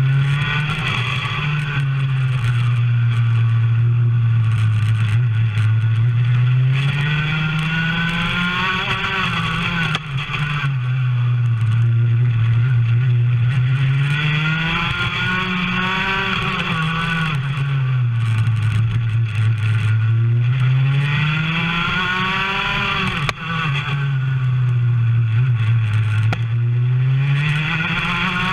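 Racing kart engine heard from on board, its pitch climbing under acceleration and dropping off as the kart slows. This happens about four times, every six or seven seconds.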